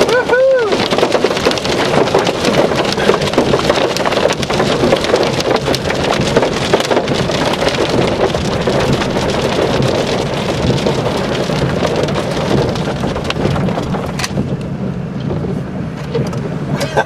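Hail pelting the roof and windshield of a moving car, a dense rattle of many small hits that eases a little near the end.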